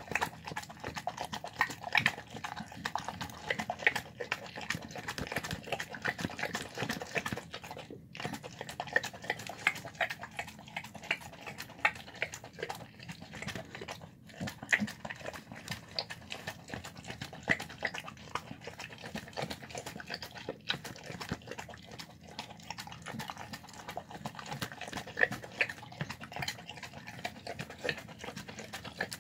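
Dog eating chicken, apple, egg and rice from a plastic tub: a fast, continuous run of chewing and smacking clicks, with brief pauses about 8 and 14 seconds in.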